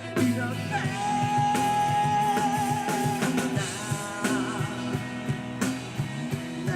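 Live rock band song: the singer holds one long sung note on "이렇게", over electric guitars and drums, and the band plays on after the note ends.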